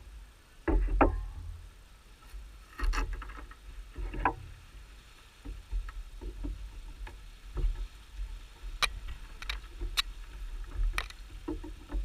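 Irregular wooden knocks, clicks and low thumps of beehive boxes and frames being handled and levered apart with a hive tool.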